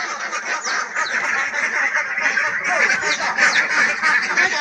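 A flock of domestic ducks quacking continuously, many calling at once.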